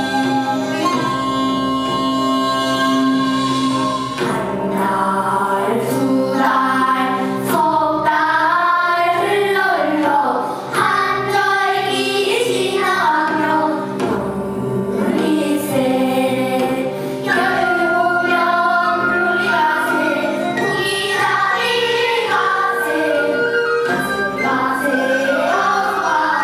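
A group of young girls singing a Korean gugak folk-style song together, the melody sliding and wavering on long notes.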